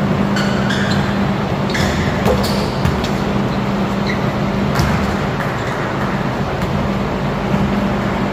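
Basketball sneakers squeak briefly on a hardwood court a few times, with the odd sharp knock of the ball. Under them runs a loud, steady mechanical drone with a low hum.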